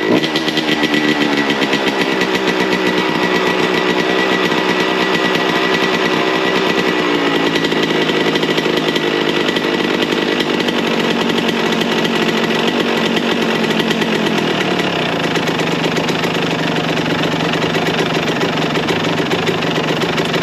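A 2004 Suzuki RM125's 125 cc single-cylinder two-stroke engine running just after a cold start, firing on a freshly fitted spark plug. It runs steadily, its pitch dropping about a third of the way in and again around two-thirds of the way through as it settles.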